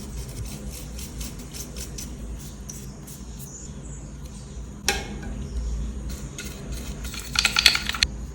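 Small clicks and taps from handling the plastic parts of a Philips Series 3000 beard and hair trimmer being taken apart for cleaning. A scattered run of light clicks comes first, then one sharp click about five seconds in, then a quick cluster of clicks near the end.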